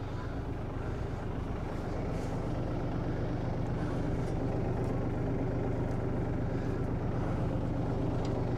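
Farm tractor engine running steadily at a constant speed, a low even hum.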